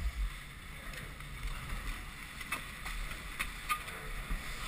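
Chairlift loading: a steady low rumble with a few sharp clicks and knocks as a chair swings in behind the riders and they sit down on it.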